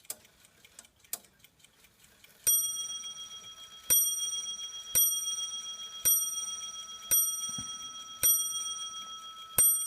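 French count wheel clock movement striking the hour on its bell: seven strikes about a second apart, each ringing on, starting about two and a half seconds in after faint clicking from the movement. The strike is out of step with the hands, sounding the wrong number of hours.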